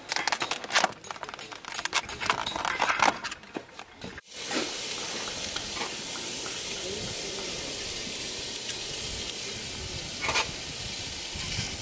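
Crackling and crinkling of a plastic meat tray being handled. Then, after a sudden break about four seconds in, a thick beef steak sizzles steadily on a hot ribbed grill plate, with a brief louder crackle near the end.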